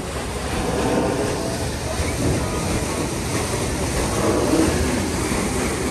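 Steady churning and low rumble of a passing paddlewheel riverboat, with water noise and faint voices mixed in.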